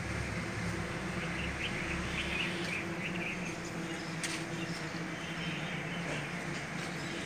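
Outdoor background noise with a steady low hum, and a few short bird chirps during the first few seconds. There is one sharp click about four seconds in.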